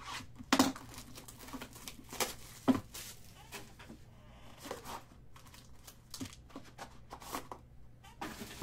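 Cardboard trading-card box being opened and a foil-wrapped card pack handled: tearing and crinkling, with a few sharp knocks and taps, the loudest in the first three seconds.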